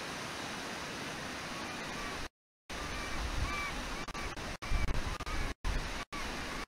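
Steady rushing of a fast river, with a gull giving a run of short, repeated high calls from about halfway through. The audio cuts out completely for short moments several times.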